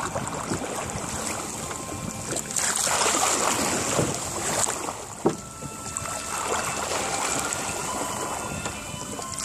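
Water rushing and splashing along the hull of a small melonseed sailing skiff under way, with chop slapping against her side. The rush swells for a couple of seconds about three seconds in.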